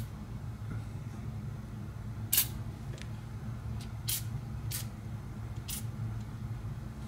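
Aerosol can of PB Blaster penetrating oil sprayed in short squirts onto bolts and nuts: four brief hisses spread over a few seconds, over a steady low hum.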